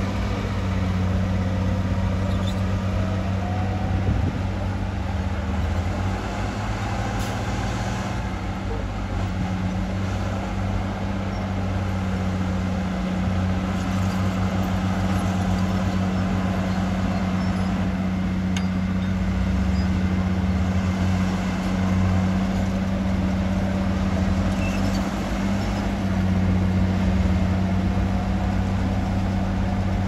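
Large diesel engine of heavy earthmoving machinery running steadily, a constant low drone.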